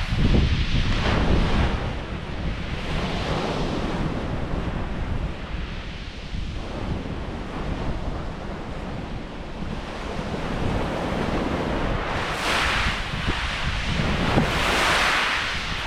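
Surf breaking on a shingle beach, with wind buffeting the microphone. Two hissing washes of surf swell up and die away near the end.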